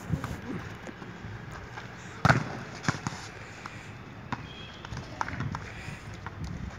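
Volleyball being struck during a rally: a loud, sharp thump of hands hitting the ball about two seconds in, followed by a few lighter hits.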